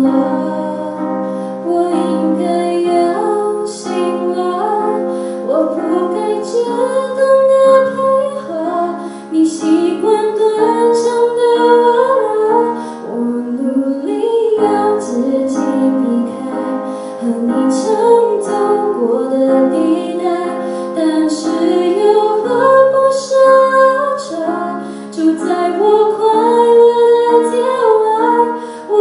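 A young female voice singing a slow melody while accompanying herself on a grand piano.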